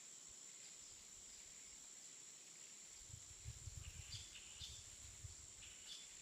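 Faint outdoor nature ambience: a steady high-pitched insect trill throughout, with a few short bird chirps from about four to six seconds in. A low rumble comes and goes in the middle.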